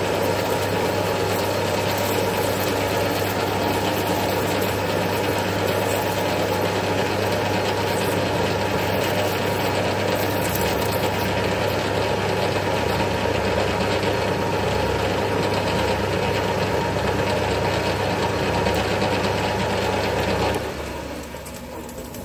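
Metal lathe running with flood coolant, cutting a small countersunk screw blank: a steady machining noise that drops sharply near the end as the cut finishes, leaving a quieter hum of the spinning chuck.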